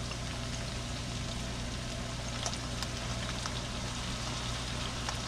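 Ground beef and vegetable mixture sizzling steadily in a frying pan while teriyaki marinade is poured over it, with a few small pops.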